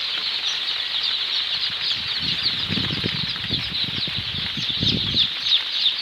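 A brood of Sonali chicks peeping continuously, many short high falling cheeps overlapping into a steady chorus. From about two seconds in to about five seconds a low fluttering rustle joins it, as of small wings flapping.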